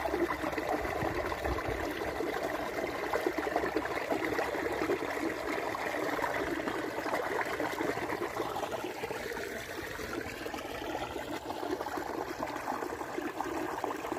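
Stream water trickling and splashing steadily over granite rocks into a pool.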